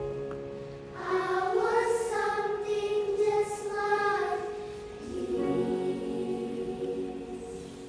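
Choir singing sustained chords. The voices swell about a second in, the higher voices drop out about five seconds in, and a lower chord fades away near the end.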